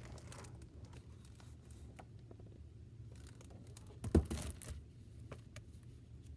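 A page of a large hardcover picture book turned over, a papery sweep with a soft thump about four seconds in, among small paper rustles and taps over a low steady room hum.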